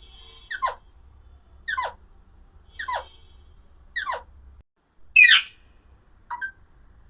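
Alexandrine parakeet giving short, falling calls about once a second. About five seconds in comes one louder, harsher squawk, then a short call.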